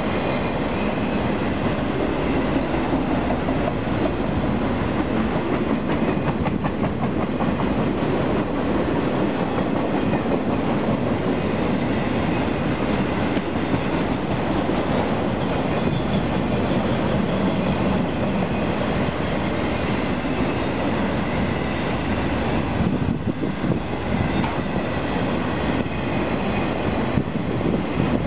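Freight train of enclosed autorack cars rolling past close by at speed: a steady rumble and clatter of steel wheels on the rails.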